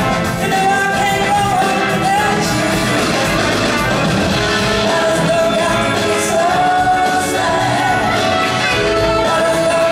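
Live blues-rock band playing loud, with electric guitars over bass and drums and a lead line that slides and bends in pitch over the top.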